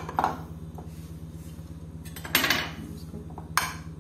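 Kitchenware clinking: a bowl and a metal spoon knocking against a glass baking dish in a few sharp taps, one of them a short scrape, over a steady low hum.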